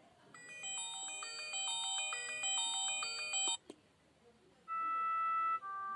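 myPhone Rumba mobile phone playing a built-in ringtone: a busy multi-note electronic melody for about three seconds that stops suddenly with a click. After a short pause, the next tone begins as a tune of single held electronic notes stepping up and down.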